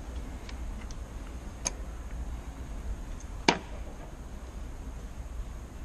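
Sharp plastic clicks from handling two KMC wall sensors held in the hands: a few faint ticks, a click about a second and a half in and a louder one about three and a half seconds in, over a steady low hum.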